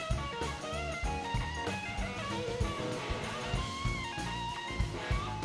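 Live band music: an electric guitar on a Gibson SG plays a lead line whose notes glide up and down, over drum kit and bass.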